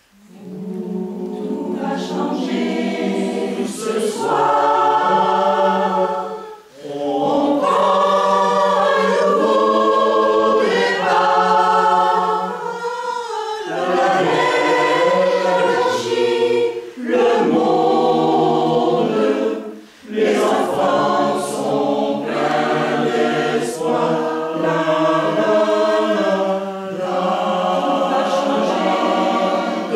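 Mixed choir of men's and women's voices singing together, coming in right at the start after near silence, with two short breaks, about a quarter and two thirds of the way through.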